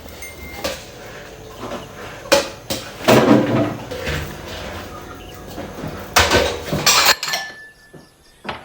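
Dishes and pots clattering as they are handled, with a few sharp knocks, the loudest about three seconds in and a pair around six to seven seconds in.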